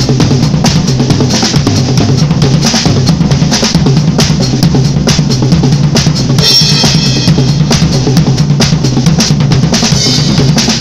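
Acoustic drum kit played in fast, continuous single paradiddles moved around the snare and toms, with bass drum underneath. A cymbal crash rings out about six seconds in, and another, fainter one near the end.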